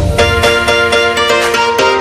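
Background music: a light tune of quick, short notes, about five a second.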